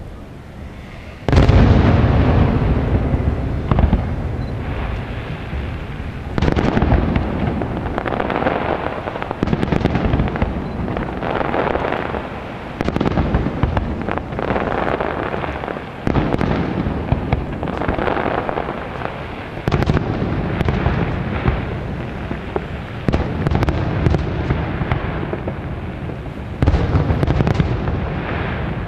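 Aerial firework shells bursting in a display. There is a loud boom about a second in, then a new burst every three seconds or so, with sound carrying on between them.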